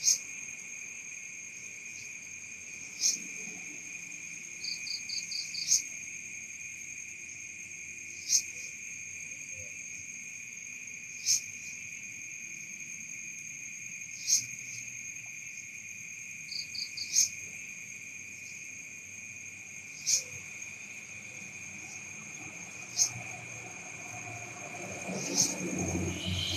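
Night insects: a steady high cricket trill, with a sharp chirp about every three seconds and a few short, rapid rattles. A low rumbling noise rises near the end.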